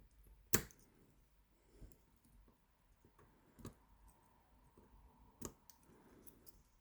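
Sparse small metallic clicks from an 8-pin tubular cam lock being picked with a probe under tension. Four clearer clicks come a second and a half to two seconds apart, the first the loudest, with fainter ticks between.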